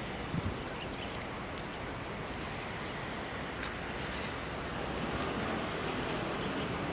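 Steady outdoor noise of wind and water, growing a little louder near the end, with a couple of brief low thumps just after the start.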